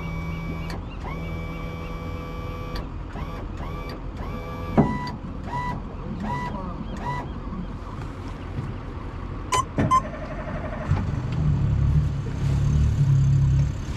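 Electronic beeps from the boat's console: a long steady tone, a second held tone, then a string of short beeps, with a sharp click or two near ten seconds. About eleven seconds in, a low engine rumble starts and grows louder.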